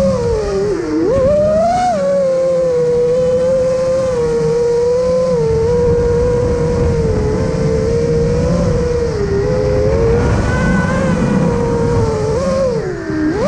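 Quadcopter drone's motors and propellers whining at a steady high pitch up close, dipping and then rising briefly about a second in and again near the end as the throttle changes.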